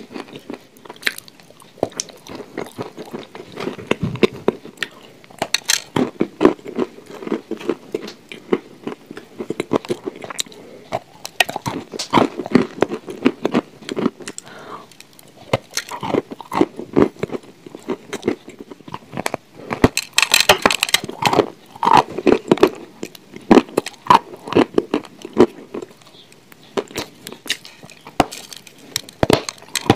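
Close-miked biting and chewing of crumbly chalk lumps: irregular soft crunches and crackles as the pieces break between the teeth, with a denser run of crunching about twenty seconds in.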